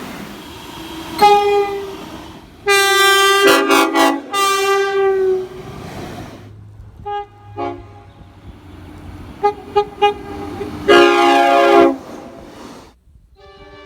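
Train horn sounding a chord of several tones in a series of blasts: a short blast, then a long loud one of about three seconds, then several short toots, and another blast of about a second near the end.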